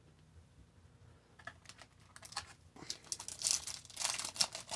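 A foil 2018-19 Upper Deck Ice hockey card pack being handled and torn open. A few light clicks and rustles come about a second and a half in, then dense crinkling and tearing from about three seconds in.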